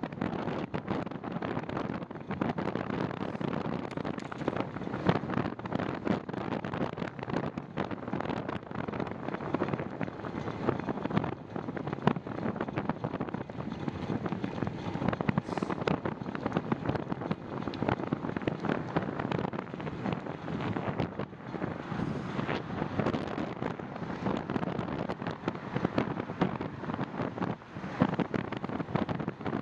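Wind buffeting the microphone of a camera on a moving bicycle in gusty wind, a steady rushing noise thick with fine crackles.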